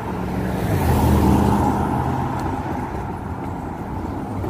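A car passing close by on the road, its engine note swelling about a second in and then fading, over steady traffic noise.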